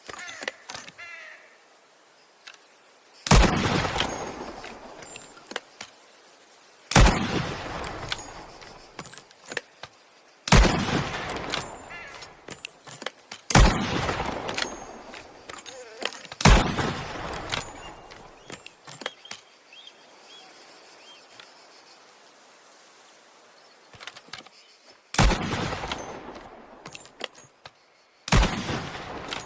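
Trapdoor Springfield carbine, a single-shot breech-loader, fired seven times, a few seconds apart with a longer pause before the last two. Each shot has a long echoing tail, and faint clicks come between shots.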